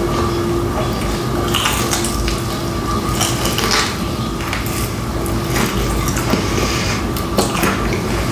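Close-up eating of crispy fried chicken wings: irregular crunching, clicking and handling noises over a steady background hum.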